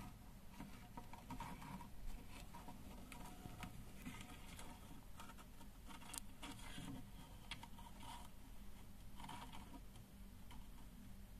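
Mud crab's legs and claw scraping and tapping against the bottom of a tub in shallow water: faint, irregular scratchy clicks and rustles over a steady low hum.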